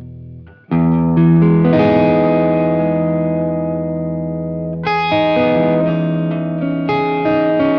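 Electric guitar played through a Gladio Cornerstone preamp pedal into an Amonito tube guitar amp, giving a mildly overdriven tone. A chord is struck about a second in and left to ring out slowly, then two more chords follow later on.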